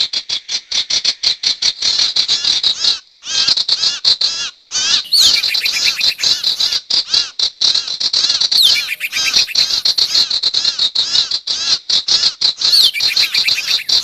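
Lure recording of sirtu bird calls: a fast, continuous chatter of short high chirps, about ten a second, broken by brief pauses about three, four and a half and nine seconds in.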